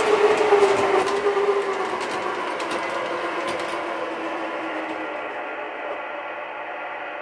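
O scale model train of CTA 'L' cars running on the elevated track and slowing to a stop, its motor whine sinking slightly and fading out about five seconds in, with light clicking of wheels and mechanism early on.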